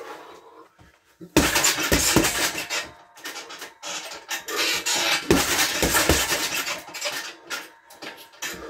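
Boxing gloves punching a Prolast heavy bag in quick combinations of three, each punch a sharp slap-thud, with the bag's metal hanging hook clinking and feet scuffing between blows. The first punches land about a second and a half in.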